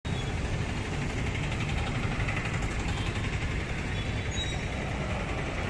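Steady city street traffic noise: a low rumble of passing vehicle engines.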